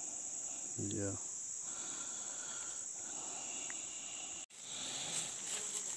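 Steady high-pitched chorus of insects, such as crickets or cicadas, in streamside vegetation; the sound cuts out for an instant about four and a half seconds in.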